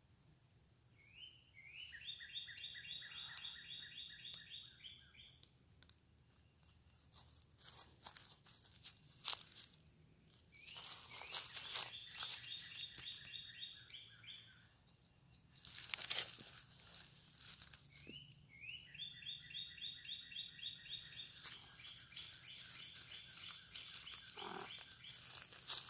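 A songbird sings the same fast trill three times; each phrase is a quick run of repeated notes lasting three to four seconds, and the last is the longest. Between the phrases, dry fallen bamboo leaves crunch and rustle, with a few sharp crunches around the middle that are the loudest sounds.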